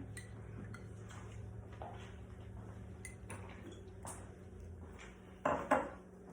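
A metal spoon clinking and scraping against a dish while sauce is spooned out, in small scattered clicks, with a louder clatter about five and a half seconds in.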